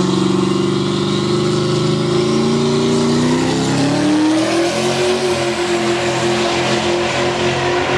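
Big-horsepower Z06 V8 in a donk, revved and held at high rpm. It climbs once more about three to four seconds in, then holds steady at the higher pitch.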